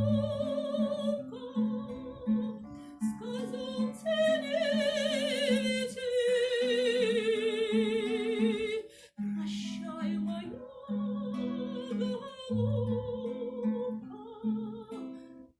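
A woman singing a Russian romance in long held notes with a wide vibrato, over a plucked guitar accompaniment. The music breaks off for a moment about nine seconds in.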